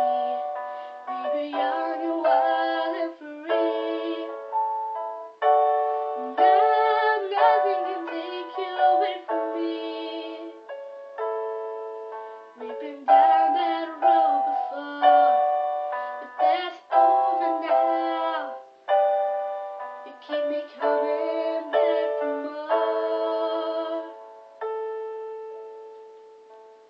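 Slow piano accompaniment playing a ballad, struck chords that ring and decay, with a young woman singing softly over it in places. The piano dies away near the end.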